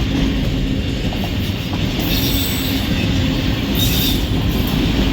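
Empty autorack freight cars rolling past: a steady rumble of steel wheels on rail, with a higher wheel screech coming in twice, about two and four seconds in.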